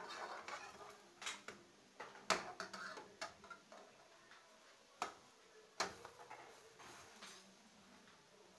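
Metal slotted spatula scraping and clicking against a thin aluminium frying pan as a pancake is lifted and flipped: a handful of sharp clicks and short scrapes, busiest in the first three seconds, with two more clicks around five to six seconds in.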